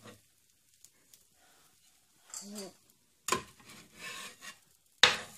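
Spatula scraping across an electric griddle as pancakes are lifted and flipped: two sharp scrapes, the first about three seconds in and the second just before the end.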